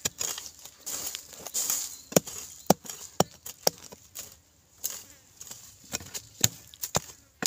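Metal digging tool striking repeatedly into dry, crumbly soil among roots: about a dozen sharp, uneven chops, roughly two a second with a short pause a little past the middle, each followed by a brief gritty scatter of soil.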